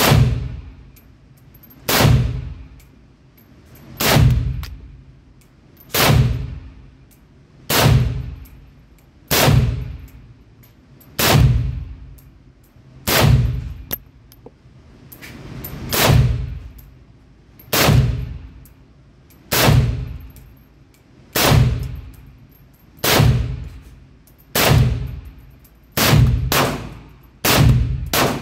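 AK-pattern pistol fitted with a muzzle brake firing slow, aimed single shots, about sixteen of them roughly two seconds apart, a few coming closer together near the end. Each shot rings and echoes off the walls of the indoor shooting lane.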